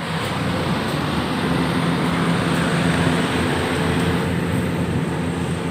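Heavy diesel engine running steadily: an even mechanical drone, with a low engine hum that grows clearer about a second and a half in.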